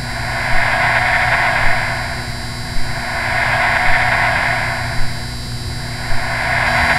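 Electronic ambient soundtrack: a band of whooshing noise swells and fades about every three seconds over steady high tones, with a soft tick about once a second.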